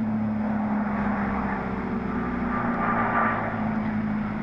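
Electric motor and propeller of a Skyhunter FPV model plane in flight: a steady hum under a rush of air noise.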